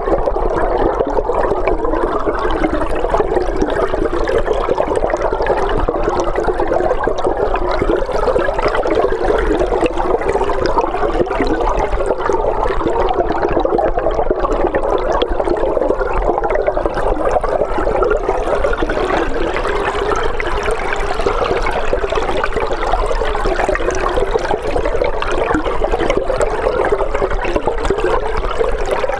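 River water heard underwater through a hydrophone: a steady, dense rushing and bubbling of flowing water, with a constant low hum beneath.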